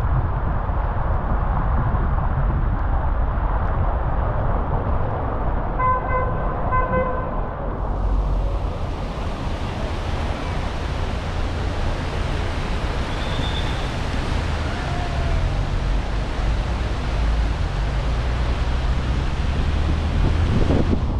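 Road traffic heard from a moving car on a wet road: a steady low road rumble, with a car horn sounding briefly about six seconds in. A steady high hiss sets in suddenly about eight seconds in.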